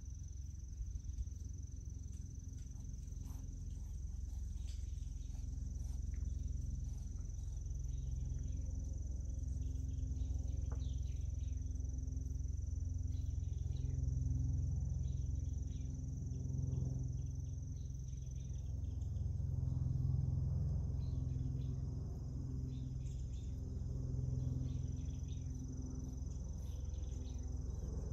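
A steady high-pitched insect trill, over a low rumble that swells and fades several times.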